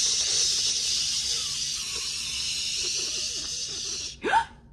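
Duct tape being pulled off the roll to wrap something: one long rasping hiss that stops suddenly after about four seconds.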